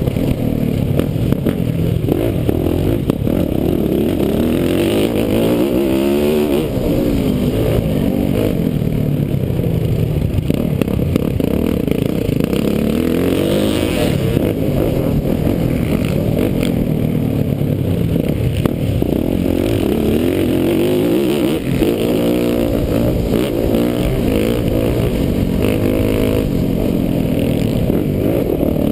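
Motocross dirt bike engine under hard riding, revving up and dropping back over and over, its pitch climbing and falling every few seconds as the rider accelerates, shifts and brakes. The sound is muffled, heard from the rider's helmet.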